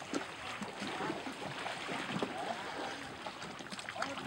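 Water splashing and lapping around a boat, with many small irregular splashes.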